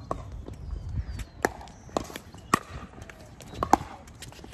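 Pickleball paddles striking the plastic ball in a rally: a string of sharp, irregularly spaced pops.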